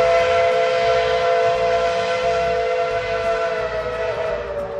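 Steam locomotive's chime whistle blowing one long, steady blast of several notes together, dipping slightly in pitch near the end.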